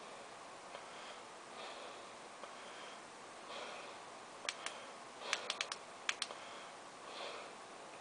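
Streamlight ProTac L2 flashlight's tail switch clicked in quick runs, about eight clicks from halfway through, cycling through its modes to reach the low mode.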